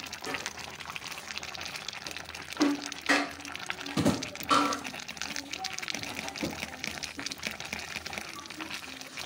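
A steel pot of stew simmering with a steady crackling bubble while chopped green pepper is tipped in from a bowl. A few sharp clanks with a short ring, around the middle, as the bowl knocks against the pot.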